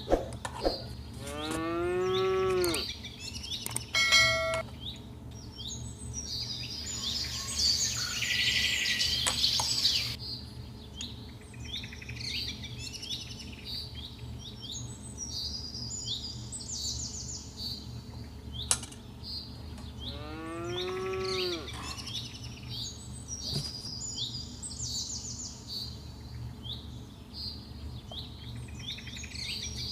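Small birds chirping all the while, with a farm animal giving two long arching calls, one near the start and one about twenty seconds in. A short stretch of hiss comes about eight seconds in.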